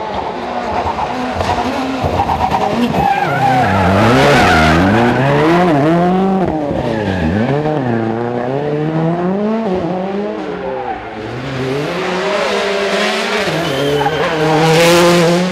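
Rally cars driven hard through corners, one after another: engines revving up and dropping back again and again as the drivers brake, shift and accelerate, with tyres skidding. The engine note is loudest about four seconds in and again near the end.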